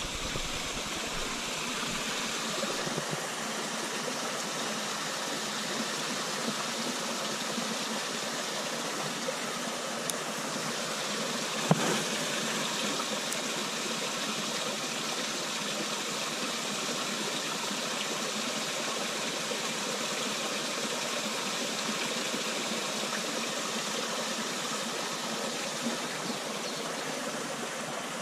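Steady rushing of water pouring through canal lock gates. One short click comes a little under halfway through.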